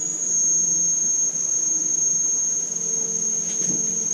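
A steady, high-pitched tone that begins just before and holds unbroken and unchanged, loud over a faint low hum.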